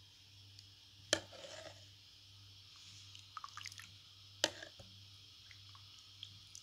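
Steel ladle clinking twice against a steel pot, about three seconds apart, with small wet drips and splashes of milky vermicelli between the clinks as it is scooped out.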